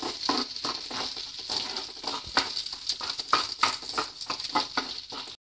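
A tempering of mustard seeds, shallots, dried red chillies and curry leaves sizzling in hot coconut oil in a pan: a steady hiss with frequent small crackles and pops.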